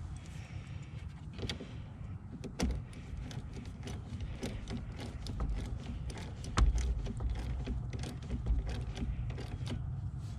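Irregular clicks, taps and clunks of hand tools and parts being handled over a steady low rumble, with one louder knock about two-thirds of the way through.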